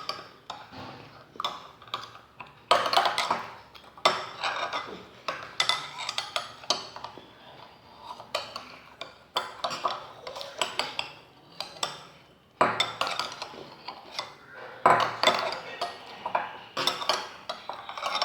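Spoons scraping and clinking irregularly against ice cream containers as two people hurriedly eat mango ice cream.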